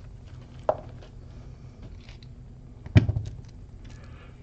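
Small clicks and one sharp metallic knock about three seconds in, with a brief rattle after it, from handling an opened American 1100 padlock to get at its lock core.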